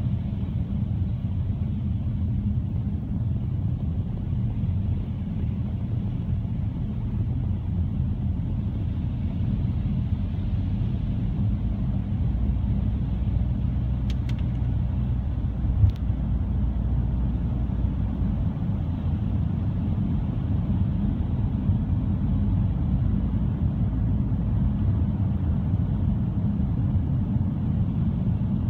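A car driving, heard from inside the cabin: a steady low road-and-engine rumble. A little past halfway come a couple of brief clicks, the second louder.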